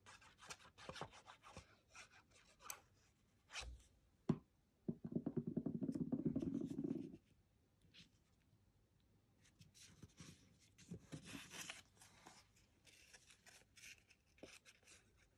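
Card stock being handled and glued: scattered rustles and light taps of paper strips being placed and pressed onto a card base, with a louder rapid rasping for about two seconds near the middle.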